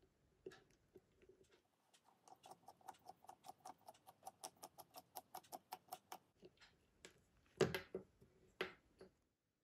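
Small flat-bit screwdriver backing a band screw out of a Casio Pro Trek PRG-240 watch: a quick, even run of faint clicks, about seven a second, for roughly four seconds. Near the end come two louder knocks as the screwdriver and the loose screw are set down on the table.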